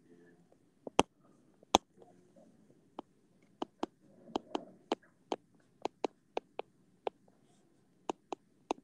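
Stylus tip tapping and clicking on an iPad's glass screen during handwriting: a run of short, sharp, uneven clicks, a few at first, then coming quickly from about halfway through.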